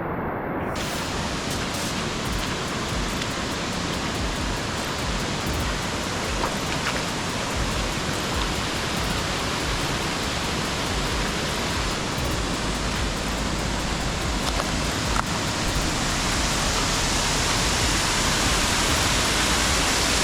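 Waterfall rushing close by: a steady, loud wash of falling water that grows a little louder about three-quarters of the way through.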